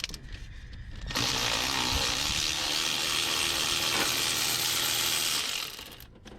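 A power ratchet runs steadily for about four and a half seconds, backing a spark plug out of the engine. It starts about a second in and winds down near the end.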